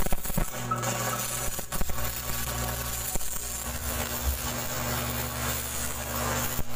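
Stick-welding (arc) rod crackling and sputtering in a continuous arc as it is pushed into molten steel to burn a hole through the plate, over a steady low hum.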